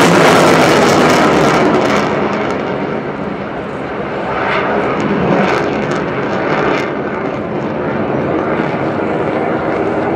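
F-16 fighter jet's single jet engine passing: loudest at the start with a crackling high hiss that drops away after about two seconds, leaving a steadier, fainter rumble as the jet moves off.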